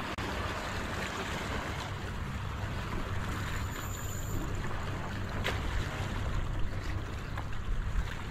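Steady wind rumble on the microphone over harbour water lapping at a rocky shore, with one faint click a little past halfway.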